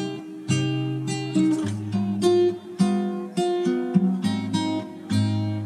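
Background music: an acoustic guitar picking and strumming chords at a steady pace, about two strikes a second.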